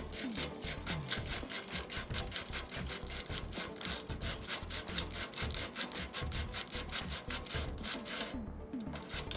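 80-grit wet/dry sandpaper rubbed back and forth in quick, light, even strokes over the rear flat-mount brake mounting surface of a carbon bike frame, a fast scratchy rubbing. The mount is being faced by hand to take off the high spots so the caliper sits flat.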